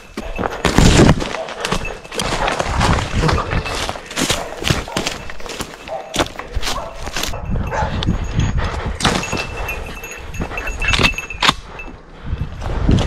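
Someone moving quickly on foot through forest undergrowth: irregular footfalls crunching and thudding on dry leaf litter and branches, with brush swishing past.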